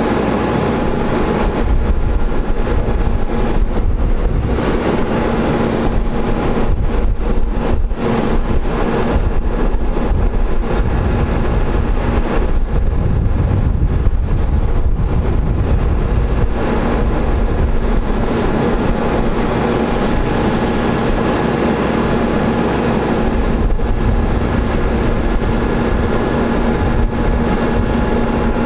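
Diesel engine of a digger derrick truck running steadily to power the Terex Telelect Commander 6000's hydraulics as the boom is worked, with a steady hum over a low rumble.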